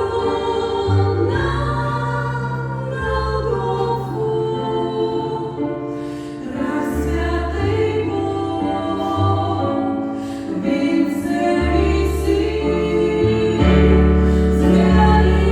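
A choir singing a Christian hymn in several voices, over low sustained notes that change every second or two.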